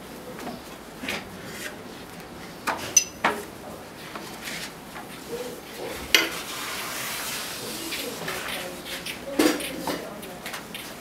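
Scattered clinks, taps and knocks of small objects being handled and set down, a few of them sharp, with a brief metallic ring about three seconds in.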